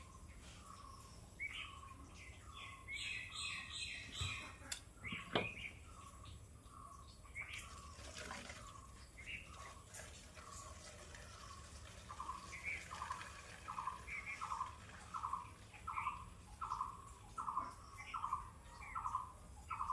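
Birds chirping: short repeated notes, with a burst of faster, higher chattering a few seconds in. In the second half one bird repeats the same short call steadily, about one and a half times a second. A single faint click is heard about five seconds in.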